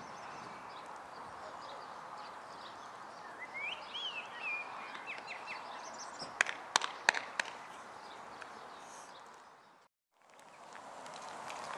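Steady outdoor background noise with a bird chirping briefly a few seconds in, then a quick run of four or five sharp clicks about halfway through. The sound fades out to silence near the end and comes back.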